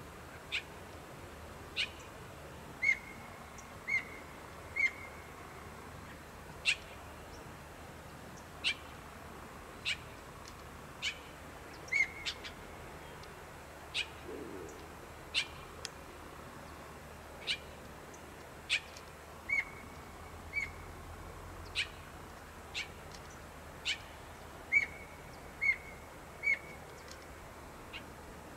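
A bird giving short, sharp chip calls, irregularly spaced about one a second, over a faint steady background hiss.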